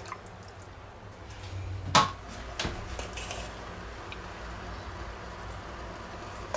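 Kitchen utensils at an enamelled cooking pot of gravy: one sharp knock about two seconds in, the loudest sound, a smaller knock just after, and faint clinks of a metal spoon as gravy granules are spooned in, over a low steady hum.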